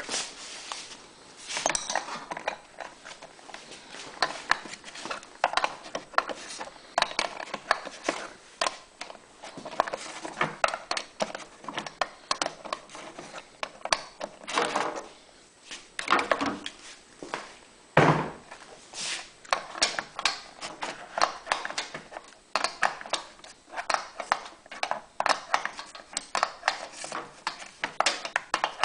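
Hands handling and fitting small brass and plastic fuel-kit parts, threading a brass fitting onto a plastic piece: frequent light clicks and taps of metal on plastic, with one louder knock about 18 seconds in.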